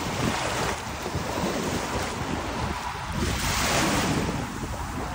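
Small waves washing in on a shallow shore, swelling louder about three and a half seconds in, with wind rumbling on the microphone.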